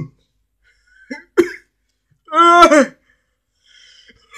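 A person's short non-speech vocal sounds: a couple of brief huffs about a second in, a pitched voiced sound lasting about half a second in the middle, and a loud burst at the very end.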